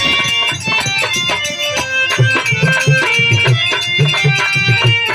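Instrumental interlude of Bhojpuri folk stage music: hand drums play a fast, steady rhythm under a held melodic line, with dense clicking percussion.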